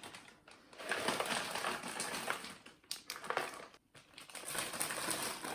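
Ice cubes being put into a large plastic zip-top bag: ice clattering and the bag crinkling, in a few spells with short pauses between them.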